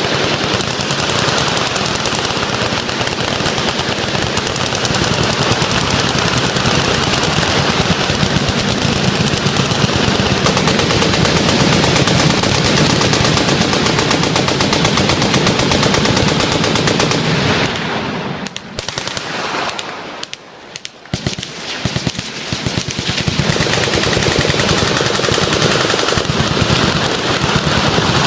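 Many machine guns firing full auto at once in a continuous barrage of overlapping bursts. About two-thirds of the way through it thins to scattered shots for a few seconds, then builds back up.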